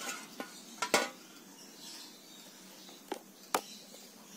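Metal cooking pot knocking and clinking against the metal pan supports of a portable gas stove as it is set down and settled: a few short, sharp knocks, the loudest about a second in and two more near the end.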